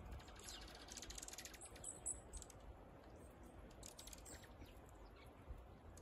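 Faint, high-pitched chips and twitters from a flock of small songbirds foraging on snow, coming as quick clusters of ticks in the first half and again about four seconds in.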